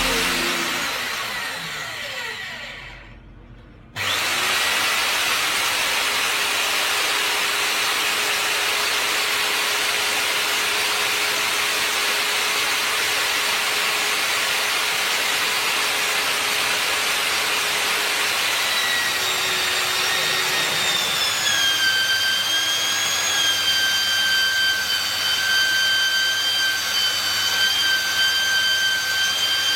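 Cayken SCY-38WSPM mini magnetic drill motor starting up suddenly and running steadily with a hissing whine. About twenty seconds in, a few higher whining tones set in and hold.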